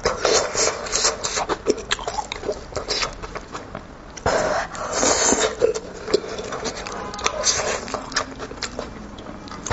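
Close-miked eating sounds from someone eating a cooked goat head: wet chewing, lip-smacking and sucking at the meat, with many sharp clicks and a few longer sucking noises.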